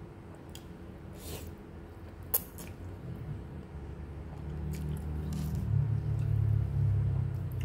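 Close-miked eating sounds: noodles slurped and chewed, with a sharp click about two seconds in and a low chewing rumble that grows louder in the second half.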